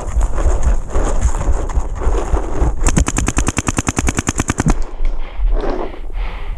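Paintball marker firing one rapid full-auto burst of about fifteen shots a second, lasting nearly two seconds from about three seconds in. Before and after it, wind rushes on the microphone with rumbling as the shooter runs.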